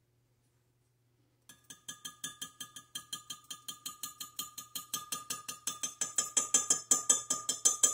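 A utensil stirring liquid soft-plastic (plastisol) in a cup and clicking against its sides at about five strokes a second, with a faint ring from the cup. The strokes start about a second and a half in and grow louder. This is the blue highlight being mixed into the cold plastic before it is heated, to keep it from clumping.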